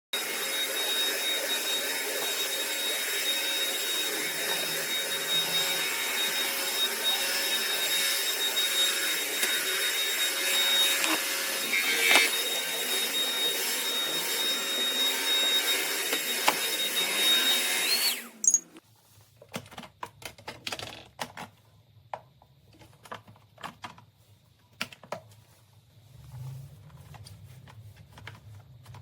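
Bissell CrossWave OmniForce cordless wet-dry vacuum cleaner running steadily with a high whine, then switched off about two-thirds of the way through and stopping abruptly. Afterwards there are only scattered small clicks and knocks.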